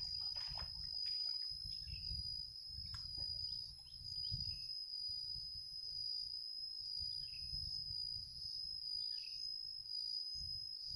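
Insects keep up a steady high-pitched whine, with a low rumble underneath and a few faint chirps. Water splashes briefly in the first second as the cast net is gathered in.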